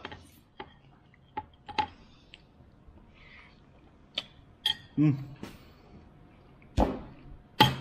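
Quiet eating sounds: a metal fork clicking now and then against a ceramic plate, with small mouth sounds, a short hum about five seconds in, and two louder knocks near the end.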